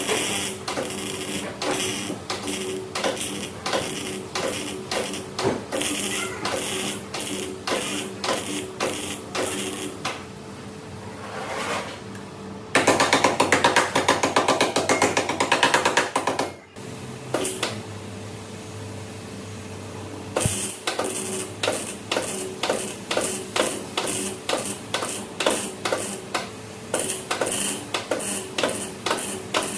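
Wire-feed (MIG) welder stitch-welding steel on a car's A-pillar: short crackling weld bursts about two a second, with one longer continuous crackling weld of several seconds near the middle.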